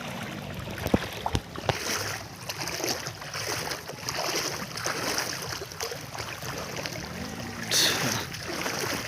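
Floodwater splashing and sloshing in irregular surges as someone moves through knee-deep water covering a road, with a few sharp clicks.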